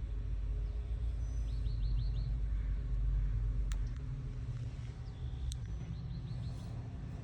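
A man snoring with a low rumble that swells over the first few seconds and then eases off. Small birds chirp above it in two quick runs of about five notes.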